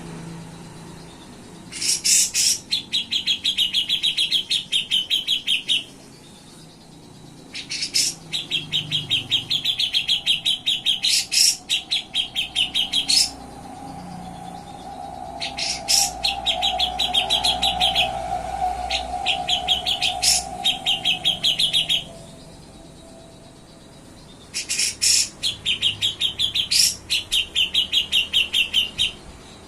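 Cucak jenggot (grey-cheeked bulbul) singing its rapid trilling chatter in four bursts of a few seconds each, with short pauses between.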